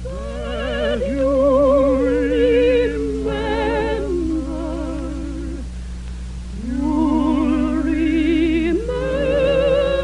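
Operatic soprano singing long held notes with wide vibrato, with a second, lower line moving alongside, a few sustained phrases broken by short breaths. A steady low hum lies under it.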